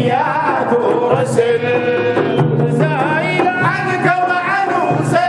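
Male voices singing a Sufi praise song (madha) in Arabic, with a steady drum beat under the singing.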